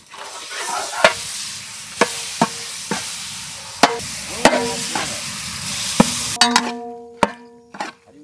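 Minced mutton sizzling as it hits hot oil and fried onions in a large metal pot and is stirred with a long metal ladle. The ladle knocks against the pot about eight times, some knocks leaving a short ringing tone, and the sizzle dies away near the end.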